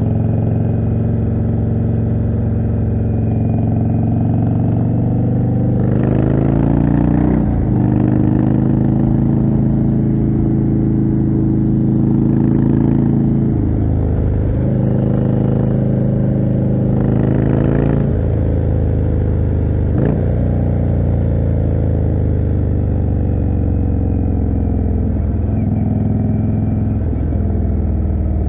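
Indian Chieftain's 1811 cc V-twin running through a Jekill & Hyde exhaust while riding, its revs rising and then dropping three times in the middle of the stretch, as under throttle and through gear changes.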